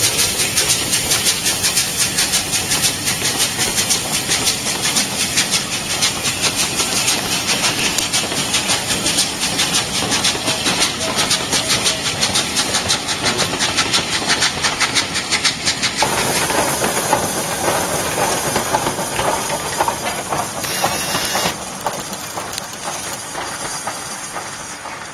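Steam locomotive working a train past: rapid, even exhaust beats over a steady hiss of steam, with wheels on the rails. The sound changes about two-thirds of the way through and drops in loudness near the end.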